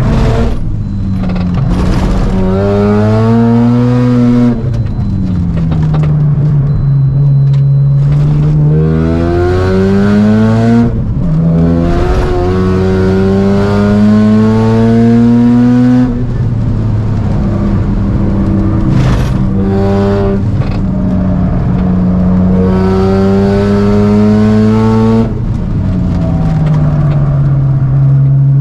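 Mazda RX-7 FD3S's turbocharged 13B twin-rotor rotary engine under hard acceleration. It climbs in pitch again and again, breaking off or dropping back several times as the driver changes gear or lifts off and brakes.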